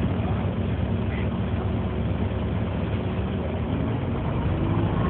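Diesel engine of a Wright StreetCar (Volvo B7LA) bus running steadily, a deep even hum heard from inside the passenger saloon.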